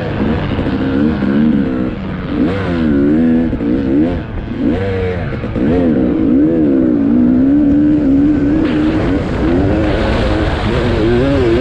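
Dirt bike engine heard from the riding bike, revving up and down with the throttle as it crosses sand. The engine pitch rises and falls repeatedly, holds steadier for a couple of seconds past the middle, and climbs again near the end.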